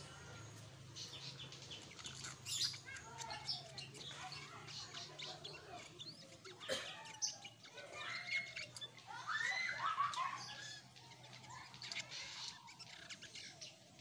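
Kutilang sutra bulbul singing a busy run of chirps and short whistled phrases, loudest about two and a half seconds in and again around nine to ten seconds in. A steady low hum runs underneath.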